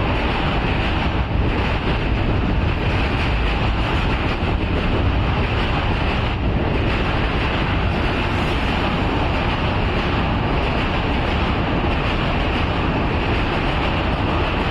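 Steady, loud rumble of a passenger train's coaches rolling across a steel truss railway bridge.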